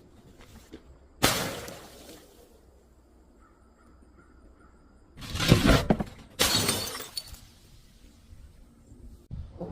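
Glass bottles smashing and shattering, three separate crashes each followed by a short spill of tinkling fragments: about a second in, then two close together around five and six and a half seconds.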